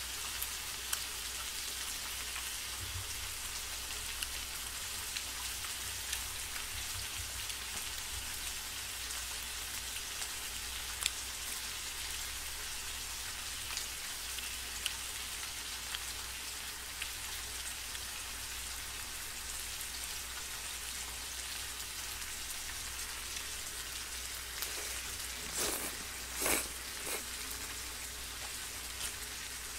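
Strips of pork belly sizzling steadily in a frying pan, with scattered small pops of spitting fat. Near the end two short louder noises stand out.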